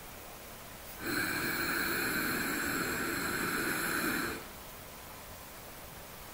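One long, audible breath drawn through the nose, beginning about a second in and lasting about three seconds, as part of paced box breathing.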